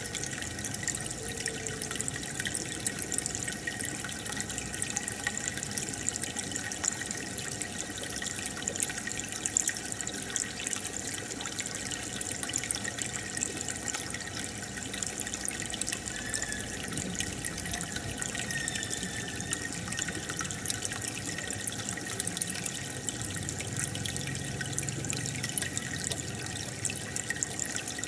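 Steady bubbling and trickling of aquarium water from an air-stone bubble stream, with fine crackling pops of bursting bubbles.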